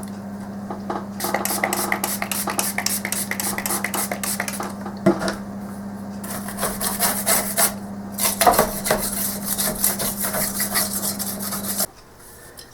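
Brisk rubbing and scraping on a monitor's circuit board as it is cleaned: a rapid run of short strokes over a steady low hum, which cut off abruptly near the end.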